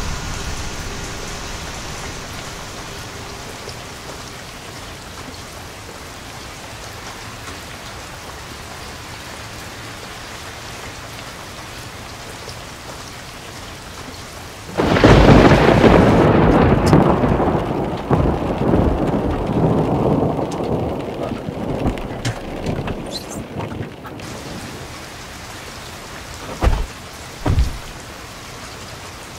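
Steady rain, then about halfway through a sudden loud thunderclap that rumbles away over several seconds. Near the end come two short low thumps.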